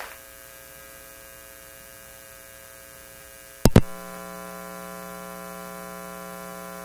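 Electrical mains hum from a PA sound system, steady and with many overtones. About three and a half seconds in, a sharp pop comes through the sound system, and after it the hum is louder.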